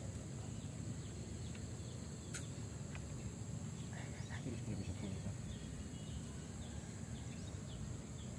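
Pondside ambience: a steady high insect drone over a low rumble of wind on the microphone, with faint chirps and one sharp click about two and a half seconds in.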